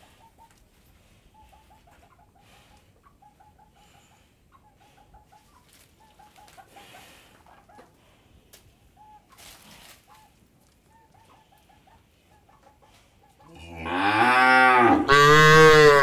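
A cow moos loudly near the end: one long low call in two parts, rising and then falling in pitch. Before it, faint short calls repeat quietly in the background.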